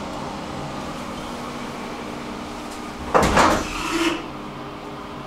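Hissgruppen elevator car travelling with a steady low hum from its drive. About three seconds in there is a loud clunk and rattle, and a smaller one about a second later.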